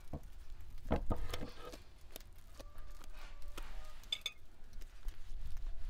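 A few soft knocks about a second in as raw bread dough is slapped onto the inside wall of a clay tandoor with a wooden peel. After that, short bird calls in the background.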